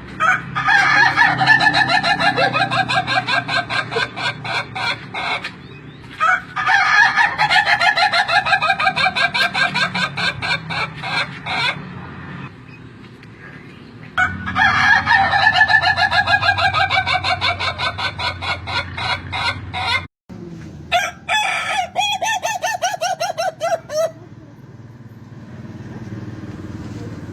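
Ayam ketawa (laughing chicken) roosters crowing: three long crows and a shorter fourth near the end, each a rapid, stuttering run of many short syllables that sounds like laughter.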